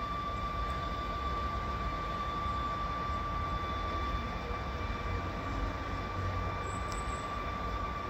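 Tyne and Wear Metrocar train standing at the platform with its equipment giving a steady high-pitched whine over a low rumble.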